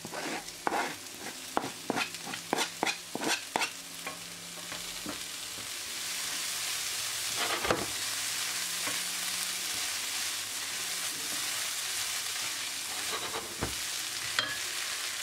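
Spatula stirring a lentil, onion and fresh-herb filling in a hot frying pan. There is a quick run of scraping strokes over the first few seconds, then a steady sizzle with an occasional clack against the pan.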